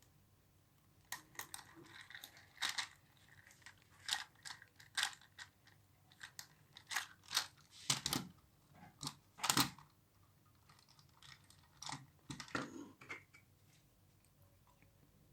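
Irregular clicks, taps and crinkling of small plastic parts and packaging being handled by hand, with two louder knocks a little after halfway.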